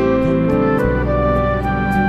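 Background music: a soft instrumental piece of held notes that change in steps, with a light tick about three times a second.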